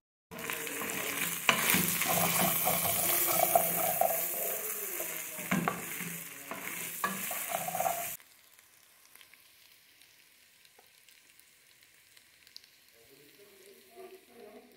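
Ground meat, sausage slices and carrots sizzling in a pressure-cooker pot as they are stirred with a wooden spoon. The sizzle cuts off suddenly about eight seconds in, leaving only faint room sound.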